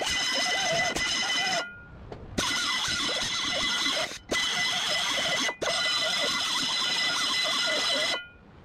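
Hand screwdriver turning screws out of a steel mini-bike seat plate, a mechanical working sound with a steady high-pitched whine underneath. It cuts off abruptly for a moment about two seconds in, briefly twice more, and again near the end.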